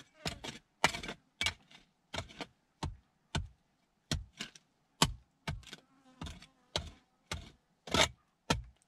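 Small metal hand shovel chopping into stony dirt, about two short, sharp strikes a second.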